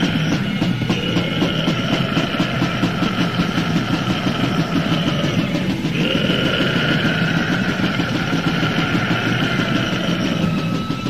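Instrumental passage of raw death/black metal on a lo-fi demo tape recording: heavily distorted guitars holding droning notes over fast, relentless drumming, with the guitars shifting to a new chord about six seconds in.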